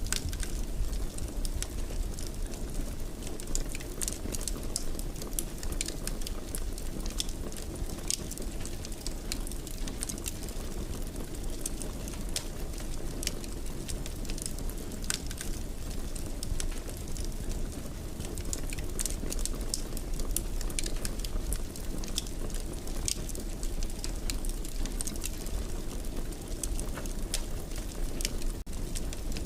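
Wood fire in a fireplace crackling, with frequent small pops over a low, steady rumble of the flames.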